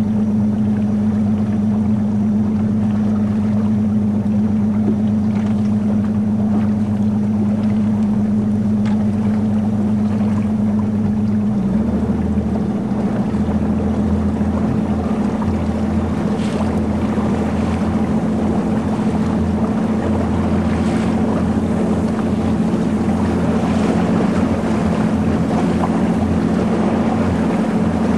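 Motorboat engine running steadily, heard on board, its note changing about twelve seconds in.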